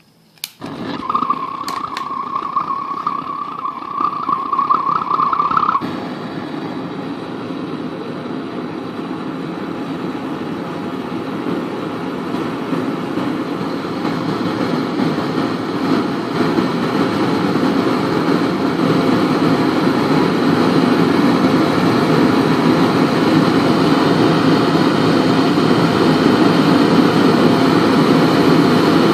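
Homemade 3/4-inch Porter-design propane forge burner lighting with a sudden pop, then burning with a steady rushing flame. A high whistle runs over it for the first few seconds and stops sharply, and the burner's rush grows gradually louder.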